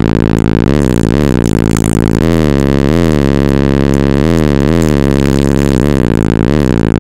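Four Vibe BlackDeath 15-inch subwoofers, powered by a Taramps T20.2KW amplifier, playing a very loud, deep bass track. A steady low rumble runs under short pitch swoops, up and back down, that come about every half-second.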